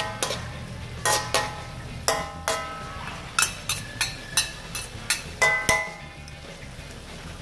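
Metal spatula knocking and scraping against a metal wok while stir-frying chopped quail, about a dozen ringing clinks at an uneven pace that stop about six seconds in.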